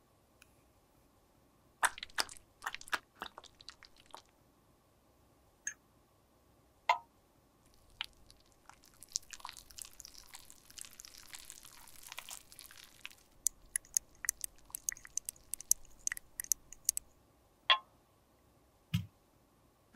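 Close-up handling sounds of cosmetics repair work: scattered sharp clicks and taps, a stretch of crackly scraping and crunching about nine to thirteen seconds in, then a quick run of small clicks and a dull thud near the end.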